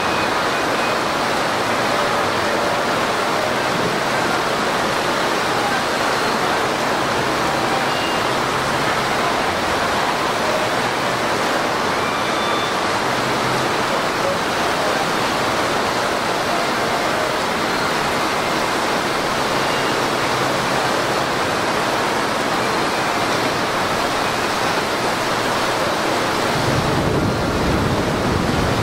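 Torrential rain pouring down on paved ground and water: a dense, steady hiss of a heavy downpour.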